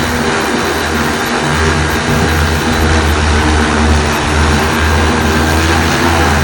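Super X 2.0 agricultural spraying drone in flight, its multirotor propellers making a loud, steady rushing drone with a low hum.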